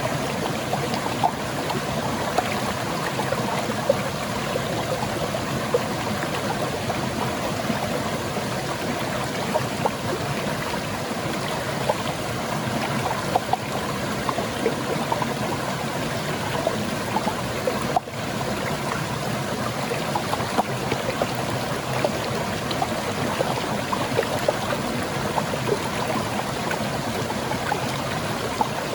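Small waterfall spilling over rocks into a stream: steady rushing water with frequent small splashes and gurgles.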